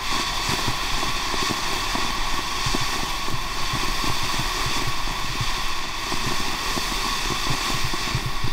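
'Monster' firework fountain burning with a steady loud hiss, with many small pops as it throws out red and green stars.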